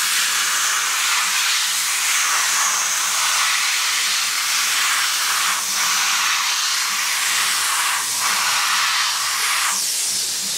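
Compressed-air blow gun hissing steadily as it blasts trapped water out from around a motorcycle's fuel-tank cap.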